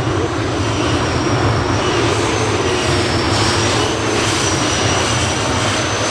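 Heavy modified pulling tractor running at full power under load, pulling the brake sled. Its engines give a loud, steady rumble with a high whine held over it.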